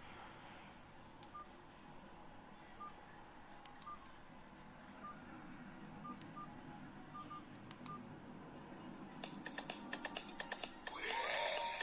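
Short electronic keypad beeps from a myPhone Maestro mobile phone, about ten quiet single-pitch beeps at irregular intervals as its keys are pressed. Near the end the phone starts playing its next preloaded ringtone, louder and busier.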